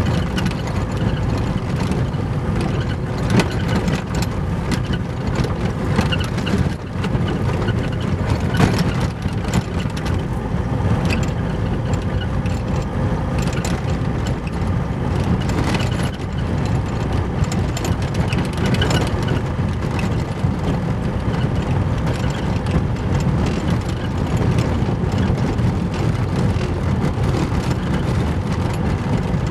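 Car driving on a gravel road, heard from inside the cabin: a steady low rumble of tyres and engine, with scattered clicks and knocks.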